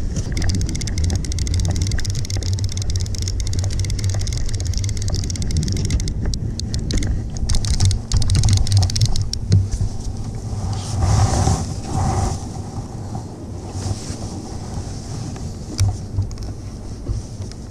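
Wind buffeting the microphone over open sea, with quick fine clicking from a conventional revolving-spool fishing reel being cranked to bring up a hooked fish. The clicking is densest over the first half.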